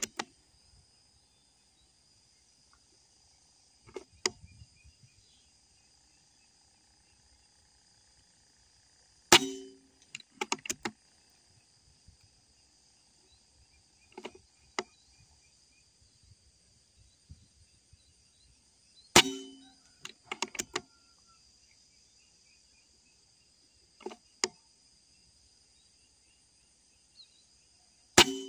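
Air rifle firing slugs, three sharp shots about ten seconds apart, each followed by a quick run of clicks, with softer clicks between the shots.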